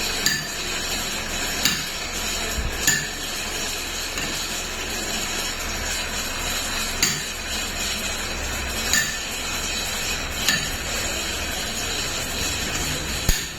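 Sharp metal-on-metal taps and clinks, about seven of them at irregular intervals, from tools striking truck gearbox parts during an overhaul, over a steady background hiss.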